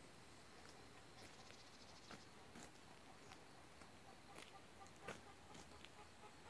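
Near silence: faint outdoor background with scattered small clicks, and a faint thin repeated call from about two-thirds of the way in.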